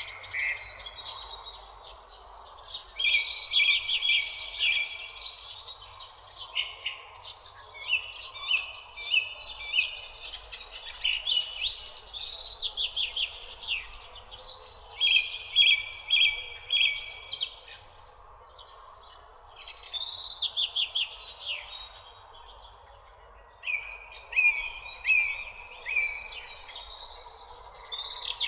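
Songbirds singing and chirping: repeated short phrases and quick trills, one after another with brief gaps, over a steady background rush.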